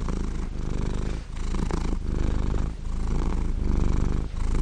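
A cat purring steadily, the low pulsing rumble coming in phrases about a second and a half long with short breaks between them.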